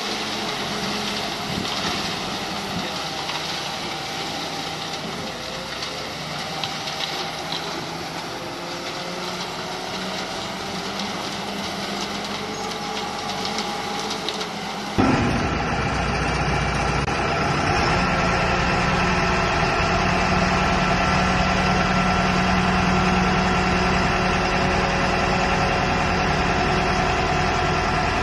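Heavy diesel engine running steadily at idle. About halfway through it changes abruptly to a louder, deeper engine sound.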